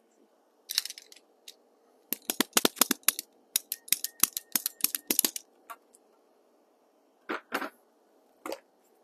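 Handling noise from electrical work with hand tools and flexible conduit: a rapid run of sharp clicks and clacks lasting about three seconds, then a few separate knocks near the end.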